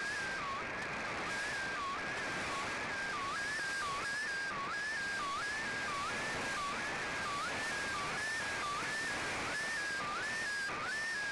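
A shortwave radio receiving a picture sent over the air in the Shortwave Radiogram's digital mode: a single warbling tone that keeps dipping in pitch and gliding back up, about one and a half times a second, over the hiss of a weak, noisy signal.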